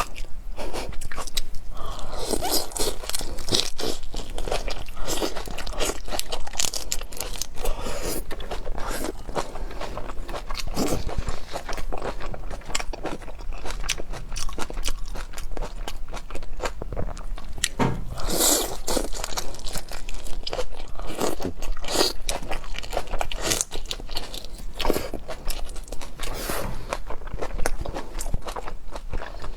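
Close-miked eating of seafood: repeated biting and chewing with crunching, in irregular clusters, a little louder around a third of the way in and again past the middle.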